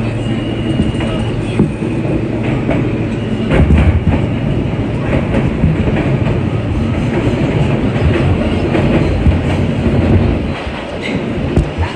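Alstom R160A subway train running, heard from inside the car: a steady rumble, with the wheels clacking over the rail joints. The rumble grows louder about three and a half seconds in.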